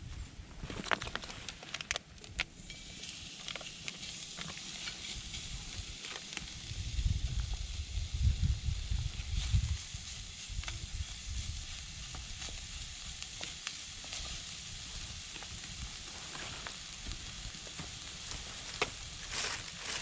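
Raw meat sizzling in a steel frying pan over a campfire, a steady high hiss that starts about two and a half seconds in as the meat goes into the hot pan. A louder low rumble comes in the middle.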